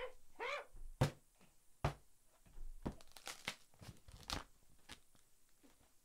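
A stretched painting canvas on a wooden frame being handled right at the microphone: two sharp knocks about a second apart, then a run of scraping, crinkling rustles about three seconds in.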